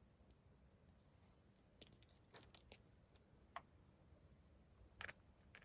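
Near silence with a few faint, scattered clicks: the clearest is about three and a half seconds in, with a small cluster near the end.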